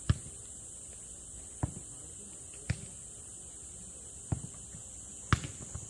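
A jokgu ball being kicked and bouncing on an artificial-turf court during a rally: five sharp thuds, roughly a second or a second and a half apart.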